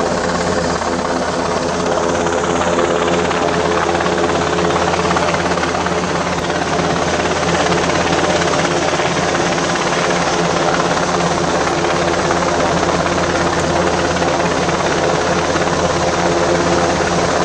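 Helicopter flying overhead: a loud, steady rotor and engine noise with a constant hum underneath.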